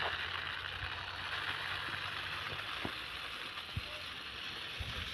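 Dried beans poured in a slow steady stream from a steel basin, a continuous hiss, as the beans are winnowed to separate the good from the bad. A low hum runs underneath and stops about halfway through.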